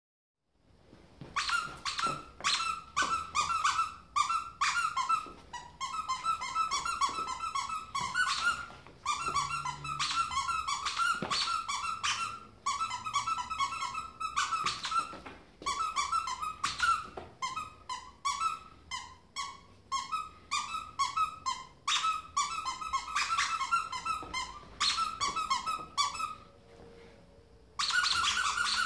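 A squeaky toy squeezed rapidly again and again in runs of quick, high squeaks with short breaks between them. Near the end the squeaking stops for a moment, then starts again louder.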